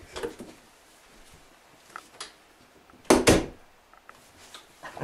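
A door shutting with a loud double thump about three seconds in, after some faint shuffling and movement.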